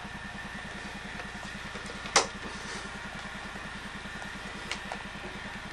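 A steady low, rapidly pulsing mechanical hum like a small engine idling, with a thin steady whine above it and a sharp click about two seconds in.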